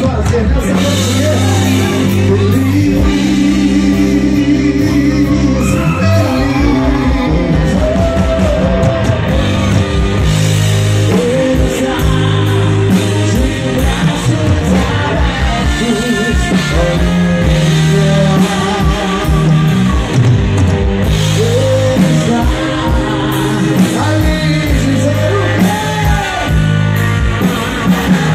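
Live gospel rock band playing, a man singing in Portuguese over electric guitar, keyboard and drums.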